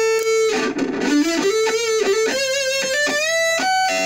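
Distorted electric guitar, a Jackson KVXMG with active pickups played through a Black Truck distortion pedal into an Orange Micro Dark hybrid tube amp and a PPC108 speaker cabinet. It plays picked single-note lead lines of held notes that climb in pitch, with wide vibrato on the notes in the second half.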